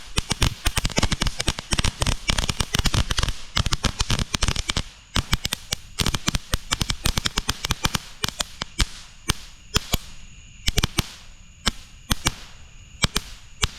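Consumer firework crackling: a dense rapid run of sharp crackles that thins out about five seconds in to scattered single pops as it dies down.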